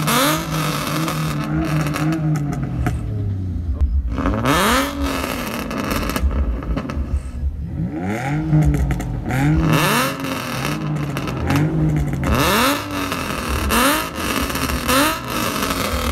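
Car engines revving again and again, each rev a quick rise and fall in pitch. The revs come in clusters, sometimes overlapping, with short lulls between.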